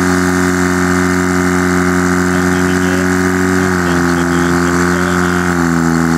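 Portable fire pump's engine running hard as a steady drone while it pumps water through the hoses to the nozzles; its pitch drops slightly about four seconds in and again near the end.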